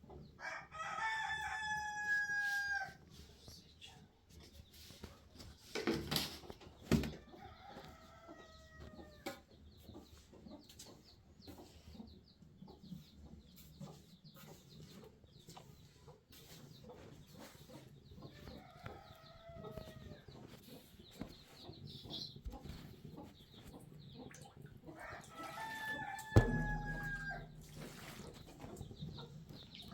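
Rooster crowing: a loud crow at the start and another near the end, with fainter crows from farther off in between. A few knocks are heard, the loudest a low thump near the end.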